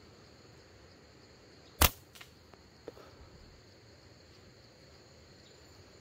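A single sharp slingshot shot snaps out about two seconds in, followed by a fainter click, over a steady high drone of insects.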